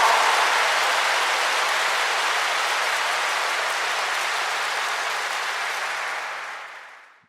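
Audience applause: many hands clapping in a dense, steady wash that fades out near the end.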